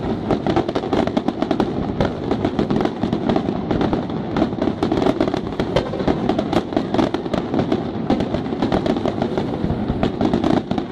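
Aerial fireworks shells bursting: a dense, continuous crackle of many small pops, with louder bangs scattered among them.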